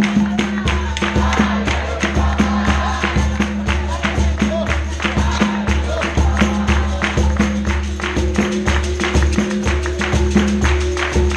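Capoeira bateria playing for the roda: berimbaus twanging over tambourine-like pandeiro jingles and a low drum. It keeps an even rhythm of about three to four strikes a second.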